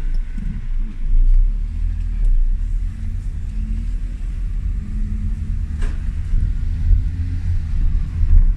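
Car engine and road noise heard from inside a small car's cabin while driving: a steady low rumble with a faint hum, and one brief click about six seconds in.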